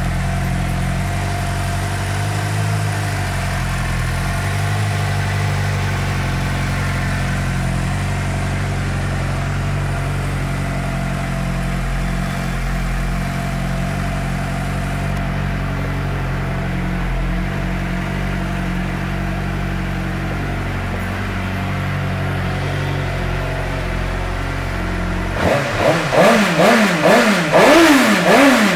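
2009 Suzuki GSX-R600's inline four-cylinder engine, fitted with a Two Brothers Black Series exhaust, idling steadily. Near the end the throttle is blipped about five or six times in quick succession, each rev rising and falling.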